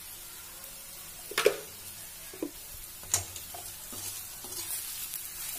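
Sliced okra frying in spiced oil in a steel kadhai with a faint steady sizzle, stirred with a perforated steel spatula that scrapes and clinks against the pan a few times, loudest about a second and a half in.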